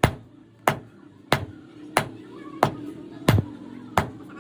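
Hammer blows struck at a steady pace, about one and a half a second, seven strikes in all.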